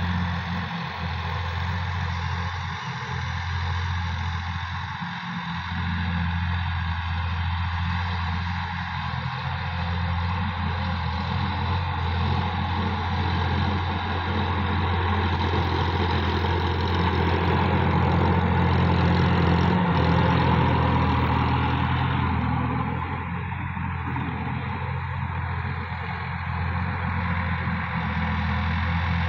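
Sonalika DI-50 RX tractor's diesel engine running steadily under load while driving a rear-mounted rotary tiller through dry soil. The tiller adds a churning noise over the engine drone, which grows louder past the middle and then eases off.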